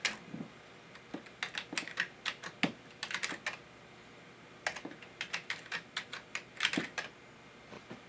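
Keys being typed on a computer keyboard in two short runs of quick clicks, each lasting about two seconds, with a pause between.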